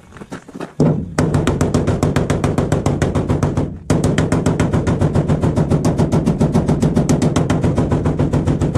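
Hammer rapidly striking a pickup truck's sheet-metal door bottom, about six or seven even blows a second, starting just under a second in with a short break just before four seconds. The door is being hammered down because it rubs on the rocker panel.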